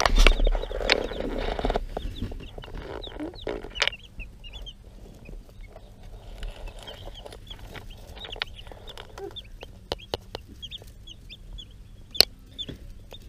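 Newly hatched chicks peeping: many short, high cheeps throughout. Rustling and bumps fill the first two seconds, and there is a single sharp tap near the end.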